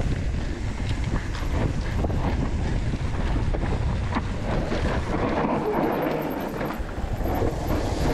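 Wind buffeting the camera microphone while an Ibis Ripmo mountain bike rolls fast down a dry, leaf-covered dirt trail, with tyre noise and frequent clicks and rattles from the bike.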